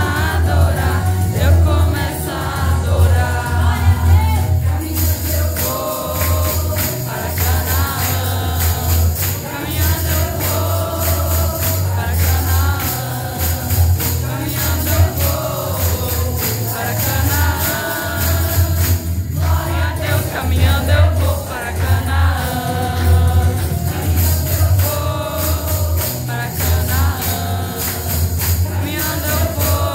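Women's choir singing over instrumental accompaniment with a steady bass line; a jingling percussion part joins about five seconds in and keeps time to the end.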